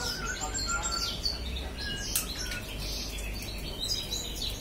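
A small bird chirping and twittering in quick, short calls, over a steady low hum.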